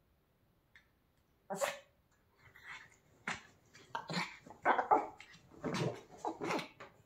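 Pomeranian rubbing herself dry on a blanket: blanket rustling mixed with a run of short dog vocal sounds. It is silent at first, with one burst about one and a half seconds in, then coming thick and fast from about three seconds in.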